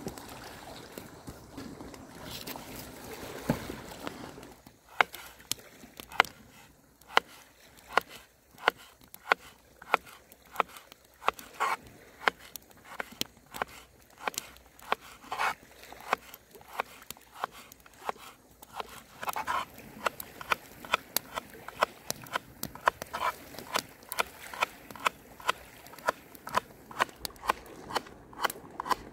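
A knife slicing a leek into rounds on a wooden bowl. Each cut ends in a sharp chop against the wood, in a steady series that starts a few seconds in, at about one to two chops a second and a little quicker near the end.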